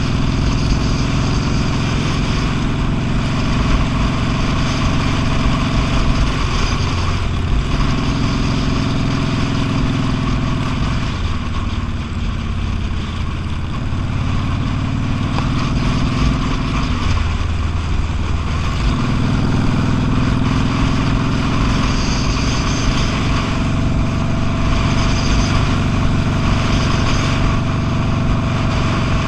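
V-twin cruiser motorcycle engine running steadily while riding on the road, with a noisy rush over the top; the engine note drops away briefly twice around the middle, as if the throttle is eased off.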